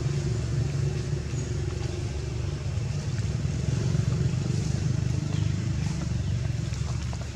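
An engine running steadily, a low droning hum that stays even throughout.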